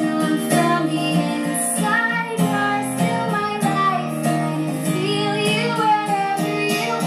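Song with a female singer over plucked guitar and a steady beat, played back through a valve power amplifier with 813 output tubes into Celestion Ditton 15 loudspeakers.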